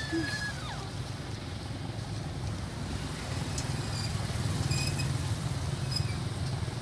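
Steady low outdoor rumble, with a short high squeak at the very start and a few faint high chirps in the middle.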